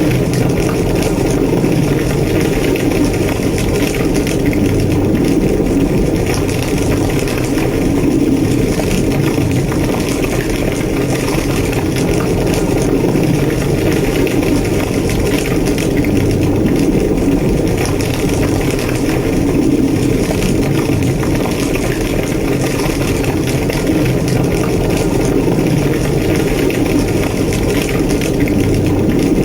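A large structure fire burning: a steady low roar with dense crackling throughout.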